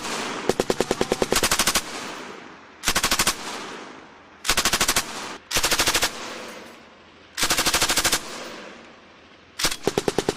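Belt-fed machine gun firing short bursts of automatic fire, about ten rounds a second, with each burst echoing away before the next. There are about seven bursts, spaced one to two seconds apart.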